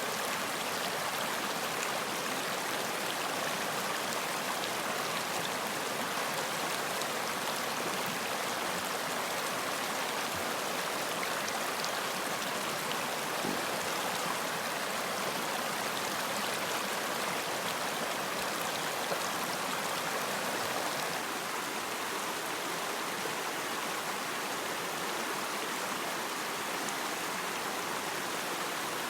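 Running water, a steady rush, easing slightly about three-quarters of the way through.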